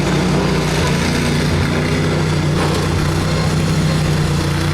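A riding lawn mower's 23-horsepower V-twin engine running steadily at an even pitch, driving the mower along.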